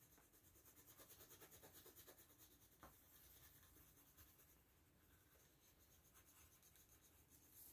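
Faint pencil scribbling on paper in quick back-and-forth strokes, shading in a small drawn eye, with one light tap about three seconds in.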